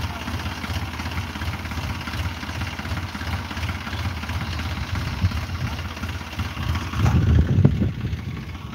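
Tractor diesel engine idling steadily with a low throb, powering the hydraulic crane boom mounted on it. It gets briefly louder and rougher near the end.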